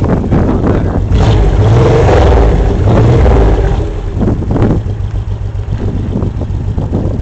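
Honda VTX1800 V-twin running through VTXexhaust.com aftermarket pipes, louder for about three seconds from a second in, with heavy wind buffeting on the microphone.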